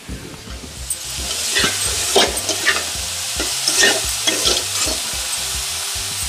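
Chopped chickpea greens (chana saag) frying in a metal kadai while a metal spatula stirs and scrapes them across the pan; the sizzle builds about a second in, with repeated short scrapes over it.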